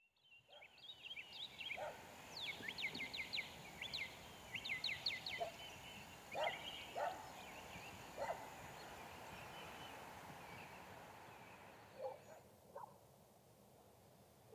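Quiet outdoor ambience: birds chirping in quick runs of high descending notes, twice in the first half, with a few short lower calls and a steady background hush.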